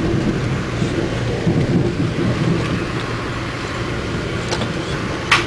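Steady low rumble of a moving Amtrak passenger train heard from inside the coach, with a sharp click just before the end.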